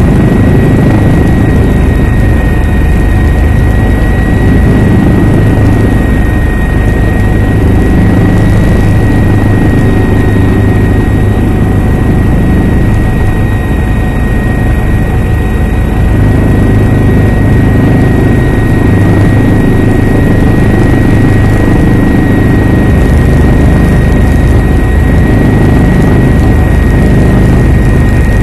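Helicopter in flight heard from on board: loud, steady rotor and engine noise, deepest at the low end, with a thin, steady high whine above it.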